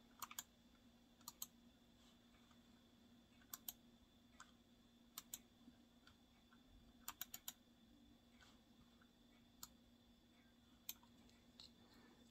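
Quiet, short, sharp clicks at uneven intervals, some coming in quick pairs or runs of three or four, over a faint steady low hum.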